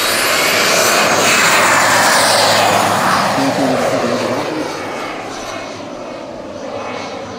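Scale model Pilatus PC-21's small turboprop engine at take-off power, a high turbine whine over the rush of the propeller, the whine rising in pitch at first. It is loudest as the model lifts off and fades steadily as it climbs away.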